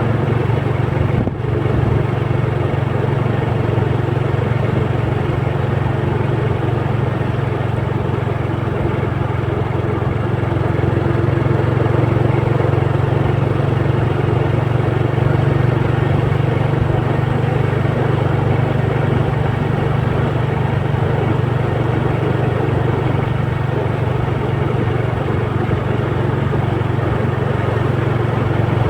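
A motor vehicle's engine running steadily while on the move, with road noise, briefly dipping about a second in.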